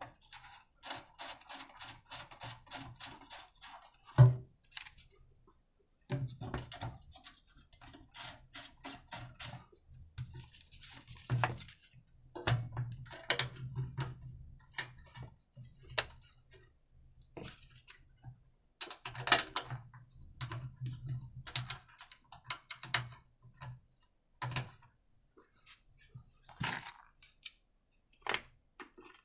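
Small clicks and scrapes of a hand tool turning screws and of metal parts being handled as the fuel tank is fastened onto a small petrol generator, with a sharp knock about four seconds in.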